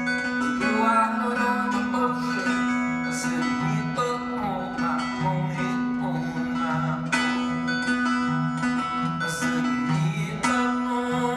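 Two acoustic guitars playing together, strummed chords over a repeating pattern of low bass notes.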